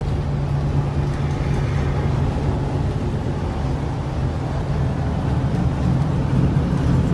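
Semi-truck cruising at highway speed, heard from inside the cab: a steady low engine drone under even road and tyre noise.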